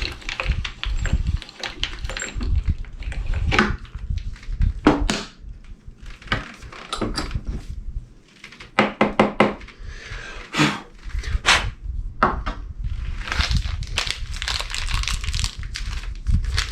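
Tools and the metal parts of glass doorknobs handled on a workbench while the knobs' threads are tapped out: a scattered series of knocks and clicks, then a few seconds of scraping near the end.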